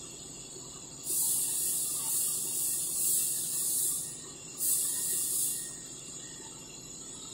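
Vertical CNC machining centre milling a metal plate with an end mill: a steady high whine underneath, broken by loud bursts of high hissing noise, one starting about a second in and lasting about three seconds, another shorter one around four and a half seconds.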